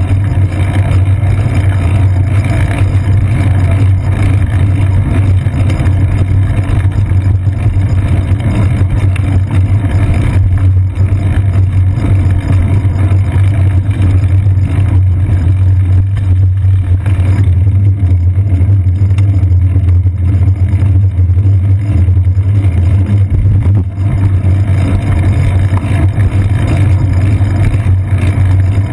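Steady low rumble of road vibration and wind picked up by an action camera mounted on a moving bicycle, with the sound of surrounding city car traffic mixed in.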